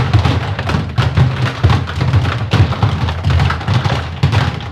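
Ice machine blowing hot air during its harvest stage to free the ice from the paddles: a loud, steady low hum with constant irregular rattling and ticking, cutting off just at the end.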